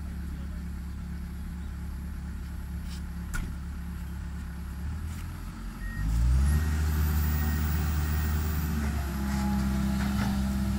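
Tracked excavator's diesel engine running steadily at low speed, then revving up about halfway through and holding at the higher speed as the machine works, with a faint high whine for a few seconds.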